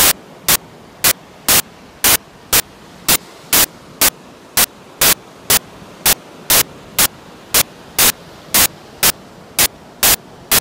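Sharp, loud pops about twice a second, evenly spaced, over a steady hiss. The machine-like regularity and the pops running on under the later speech mark them as a fault in the phone's recording, a digital glitch rather than a sound from the beach.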